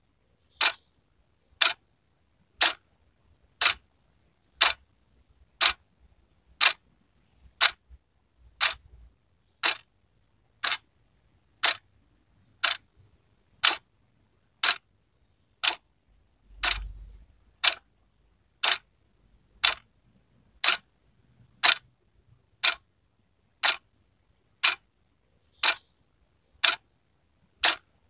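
Wall clock ticking steadily, one sharp tick each second.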